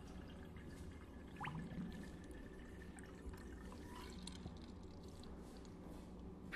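Faint dripping and trickling liquid, scattered small drops over a low steady hum, with a brief rising squeak about a second and a half in.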